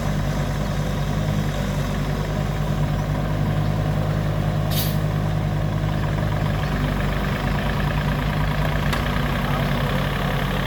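Heavy machinery engine running steadily, with a short hiss about five seconds in.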